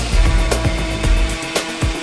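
Background music with a steady beat, bass pulses and held tones.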